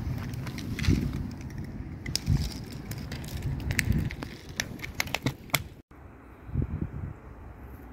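Cats crunching dry kibble: many sharp crackling crunches over low rumbling bumps on the microphone. It turns quieter about six seconds in.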